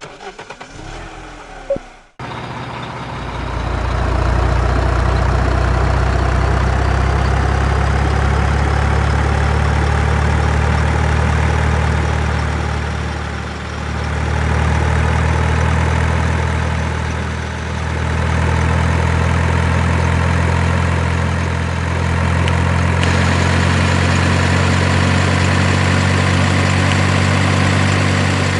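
Heavy vehicle engine running steadily at a low, even pitch, easing off briefly twice and joined by a higher hiss later on. A short, different sound comes before it, cut off about two seconds in.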